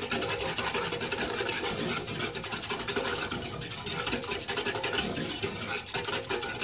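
A whisk beating quickly round the inside of a saucepan, mixing cold milk with flan powder, sugar and starch: a steady, rapid scraping and swishing.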